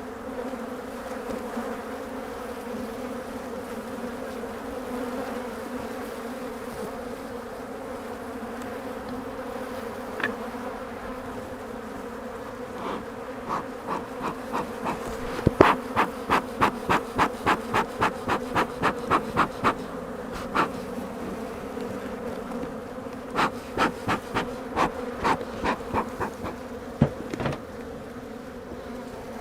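Steady buzzing of a defensive honey bee colony swarming around and onto the beekeeper at an open hive. Partway through come two runs of short, sharp, regular strokes, about two or three a second.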